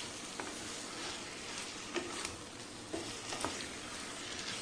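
Boiled taro pieces being stirred into masala frying in a kadhai: steady sizzling of the oil, with the spatula scraping and knocking against the pan a few times.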